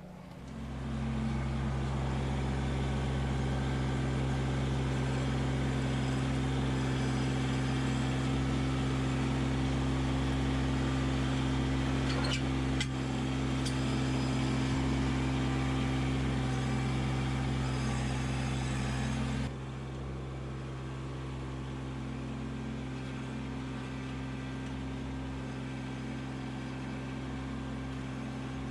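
Kubota LX2610 compact tractor's three-cylinder diesel engine running steadily. About two-thirds of the way through, the sound drops to a lower, quieter level.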